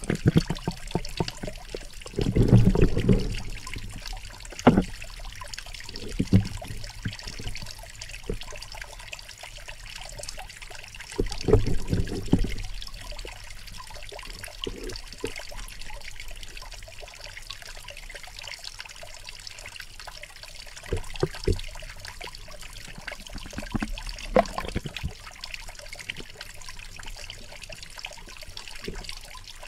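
Muffled water sounds picked up by a camera held underwater, with dull low knocks and thuds, loudest around two to three seconds in and again around eleven to twelve seconds in, over a steady hiss.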